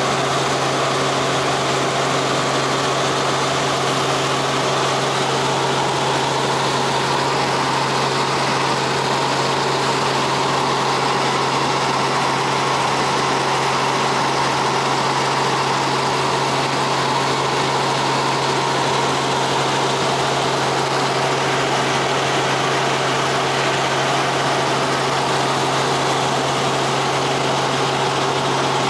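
Helicopter in cruising flight heard from inside the cabin: a steady low drone from the rotor and engine over a constant rushing noise, unchanging in pitch and level.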